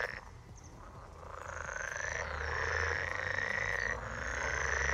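Frogs calling in a dense, continuous chorus that fills out after about the first second.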